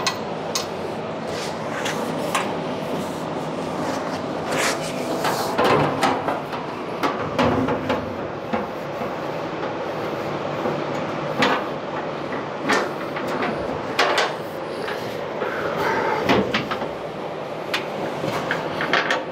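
Shop fan running steadily, with scattered clicks and knocks from hands working at a pickup truck's rear fender and its fittings.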